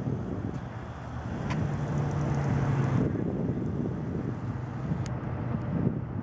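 Wind rumbling on the microphone, with a low vehicle engine hum that swells about a second and a half in and fades a couple of seconds later.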